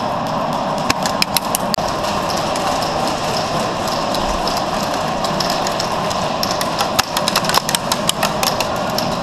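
Airsoft gunfire: clusters of sharp cracks about a second in and again from about seven to eight and a half seconds, over a steady mechanical drone.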